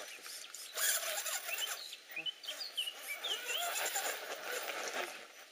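Loose riverbed stones clicking and crunching under the tyres of an RC rock crawler as it climbs, with a few short bird chirps about two to four seconds in.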